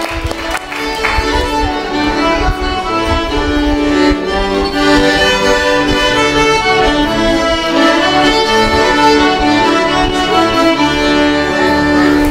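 An accordion and a violin playing a tune together live, with held melody notes.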